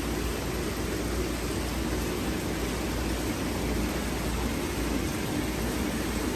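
Steady splashing rush of water pouring through a tall wooden fountain of troughs, buckets and wheels and falling down to a basin below.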